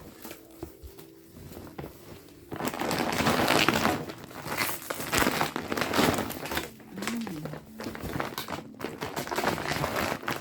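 Plastic packaging crinkling and rustling as it is handled, starting about two and a half seconds in and going on in uneven bursts.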